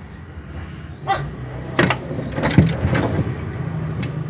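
A handful of sharp knocks and bumps, the loudest about two and a half seconds in, over a low steady hum.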